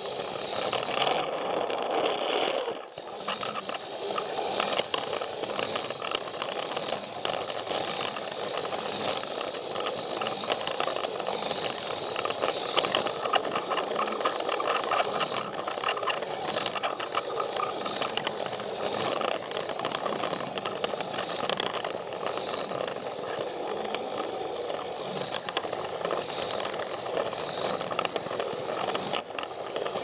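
Battery-powered Plarail toy train running on plastic track, heard from on board: a steady whir of the small motor and gears with a fast clatter of the wheels over the track, dipping briefly about three seconds in.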